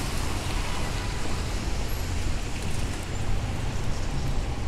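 Steady city street traffic on wet pavement: an even hiss of tyres on the rain-soaked road over a continuous low rumble of engines.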